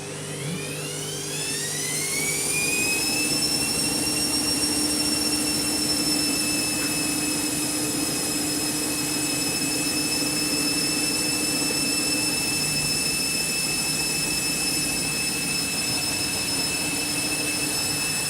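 Candy washing machine's drum accelerating into its final spin: the motor's whine rises in pitch for the first few seconds, then holds steady at top spin speed, set to 1200 rpm.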